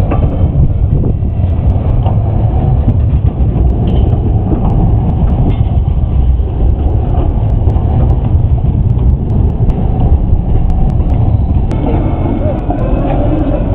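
Siemens Combino low-floor tram rolling past close by on curved street track: a loud, steady low rumble. The sound changes near the end as a second tram comes in.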